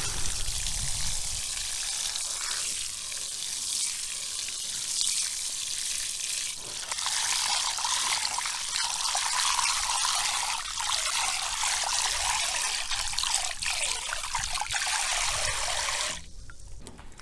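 Tap water running and splashing into a plastic bowl of basmati rice while a hand rubs the grains to rinse off the starch. The water sound grows fuller about halfway through and cuts off suddenly near the end.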